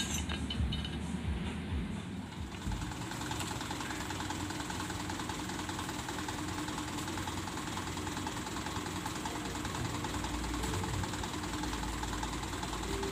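Mitsubishi Fuso truck's diesel engine idling steadily, with a fast, even clatter.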